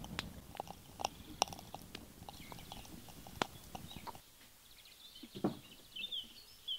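Wood embers crackling with sharp, irregular pops under loam casting moulds being fired. About four seconds in the crackling drops away and small birds chirp.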